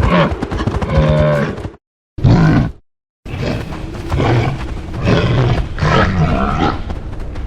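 Designed Pachyrhinosaurus vocalisations: three low grunting calls separated by short silences. A call of about two seconds comes first, then a short grunt, then a longer rumbling call that swells several times.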